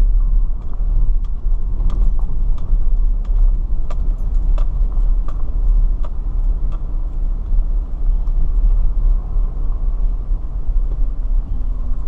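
Car driving slowly, heard from inside the cabin: a steady low rumble of engine and road, with scattered light clicks and rattles.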